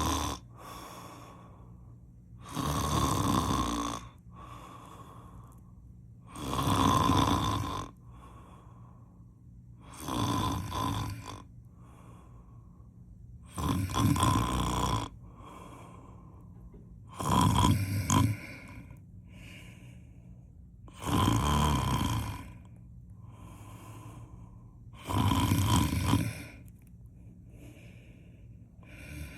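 A person snoring loudly in sleep: seven snores about every four seconds, each lasting a second or more, with quieter breathing out between them.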